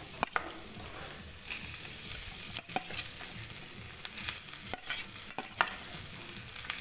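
Cooked basmati rice sizzling in hot ghee as it is stirred, with a few sharp taps and scrapes of a spatula against the pan.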